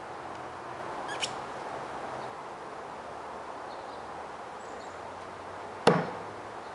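A Cold Steel Shanghai Shadow throwing knife striking and sticking in a wooden target board: one sharp thunk near the end, with a short ring. Earlier, footsteps rustle through dry leaf litter with a small click.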